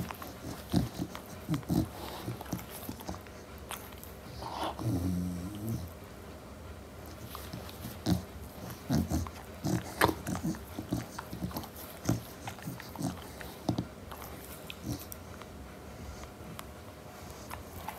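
Chow chow puppy fussing as it wakes up: short scuffling and mouth noises as it rubs its face and paws against a fleece blanket, with a low grumble about five seconds in.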